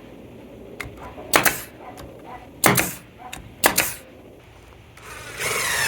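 Three sharp strikes about a second apart as shingles are fastened to a wooden roof, followed near the end by a longer rushing noise.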